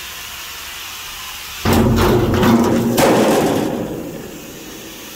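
A cut-out section of corrugated steel shipping-container wall falls and slams flat onto concrete about one and a half seconds in. It lands with a loud metallic clatter and ringing, strikes again about a second later, and dies away over the next second.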